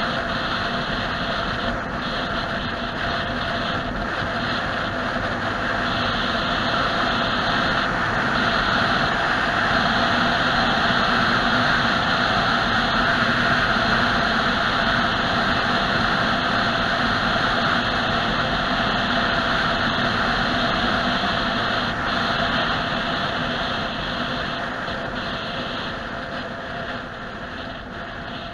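A car's engine and tyre noise heard from inside the cabin while driving, steady throughout, swelling a little in the middle and getting quieter near the end.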